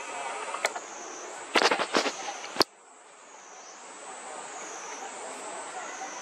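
A few sharp cracks and pops: one about half a second in, a quick cluster around two seconds, and a loud single one just after. Under them a steady high insect drone swells and fades.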